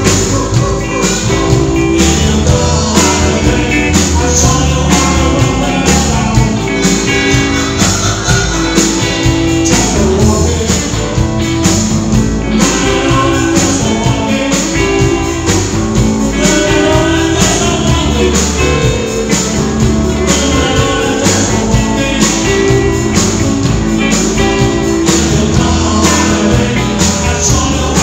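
Live blues-rock band playing with electric guitars, bass and drums over a steady beat, with some singing.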